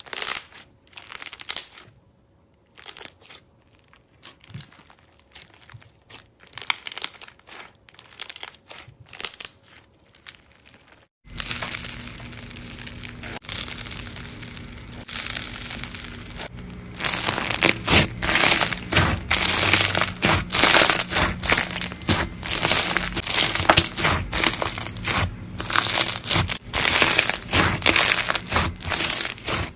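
Crunchy slime worked by hand, giving a stream of crackles and crunches. It is sparse and fairly quiet for about the first ten seconds, then suddenly louder and denser, and loudest from about seventeen seconds in.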